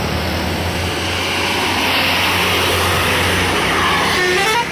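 Bus engine pulling up a steep grade, a steady low hum with a rising wash of noise as it comes closer. Near the end a multi-tone telolet horn starts playing a stepped melody.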